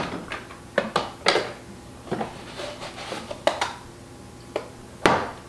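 Metal measuring cup scooping honey granules from a plastic container: about half a dozen sharp clinks and knocks of the cup against the container, with brief rustling scrapes of the granules, the loudest knock near the end.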